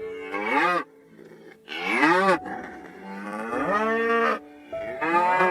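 Cow mooing: about four calls in a row, each rising and then falling in pitch.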